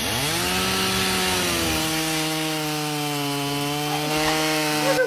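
Hair dryer switched on: its motor whine rises as it spins up, then runs steadily over rushing air, and cuts off near the end.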